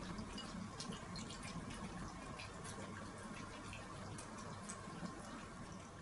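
A Chihuahua eating kibble moistened with a little milk, making wet smacking chewing sounds: irregular small wet clicks several times a second.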